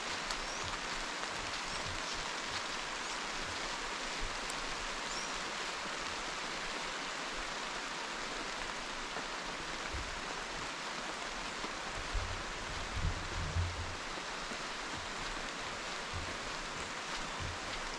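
Steady rain, heard as an even hiss, with a few low thumps about two-thirds of the way through.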